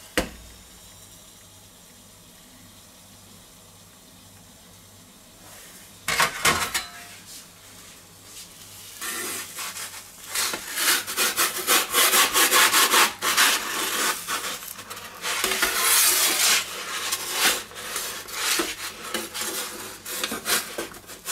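The lid of a G3 Ferrari electric pizza oven clicks shut, and about six seconds in it is lifted open with a clunk. From about nine seconds on, a metal pizza peel scrapes repeatedly across the oven's pizza stone as it is pushed under the baked pizza.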